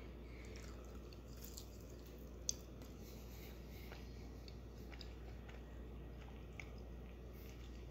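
Faint chewing of a bite of crispy breaded buffalo chicken, with scattered soft crunches and one sharper click about two and a half seconds in, over a low steady hum.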